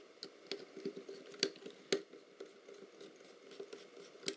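Irregular small clicks and taps from fingers handling the plastic and metal parts of a partly dismantled film camera, with a few sharper clicks among them.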